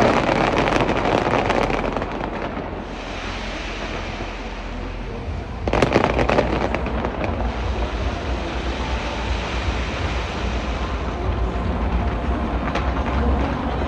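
Fireworks display: dense crackling of bursting shells, then a quieter stretch and a fresh burst of sharp cracks and bangs about six seconds in, over a continuous low rumble of booms.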